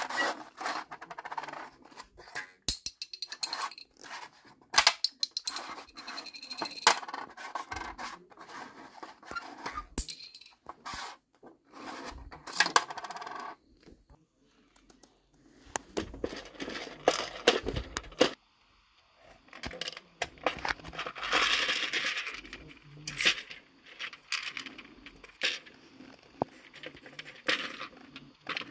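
Small hard objects clicking and clattering: many irregular sharp knocks, with stretches of rubbing and scraping, the longest about three quarters of the way through.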